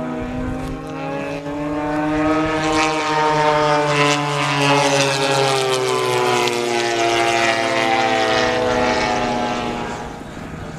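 Radio-controlled model airplane's propeller and motor flying past: a steady buzzing note that rises in pitch as it approaches, is loudest around the middle, then drops in pitch and fades near the end.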